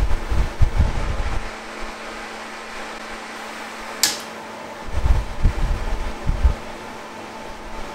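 Propane fan heater running: the electric fan hums steadily while the gas burner's flame rumbles in gusts, dying down after about a second and a half and flaring up again about five seconds in, with one sharp click in between. The heater is faulty and will not stay lit: the thermocouple is not holding the gas valve open.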